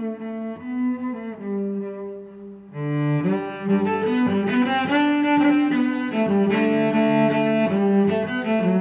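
Instrumental background music with long held notes; it grows fuller and louder about three seconds in.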